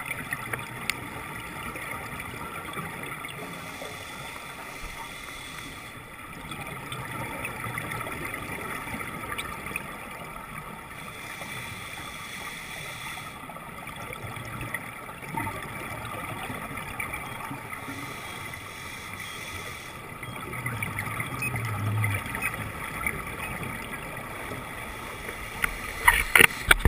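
Underwater sound picked up through a GoPro housing on a scuba dive: a steady muffled water noise, with a change in the hiss that comes back about every seven seconds, in time with a diver's breathing on the regulator. A few sharp clicks or knocks near the end.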